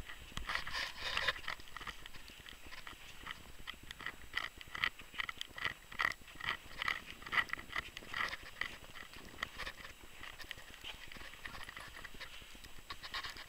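Footsteps crunching through deep fresh snow at a walking pace, about two to three steps a second.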